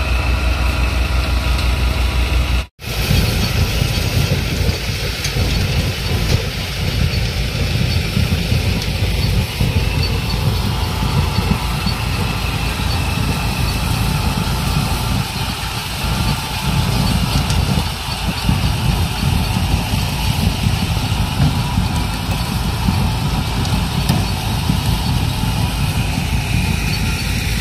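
Tractor-powered threshing machine running while threshing mung bean plants: a steady, loud mechanical rumble with a fast churning beat. It breaks off for an instant about three seconds in.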